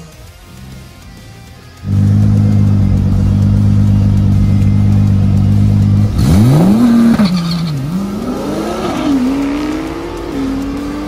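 Twin-turbo V6 of a built Nissan GT-R drag car held at steady revs on the starting line for about four seconds, then launching hard. Its pitch sweeps up, drops back at several upshifts and climbs again as the car pulls away down the strip.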